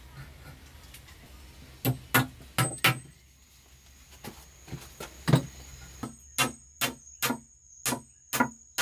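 A series of sharp tool strikes, about a dozen at roughly two a second, each with a short dull ring, during construction work. A thin steady high-pitched tone runs underneath from about three seconds in.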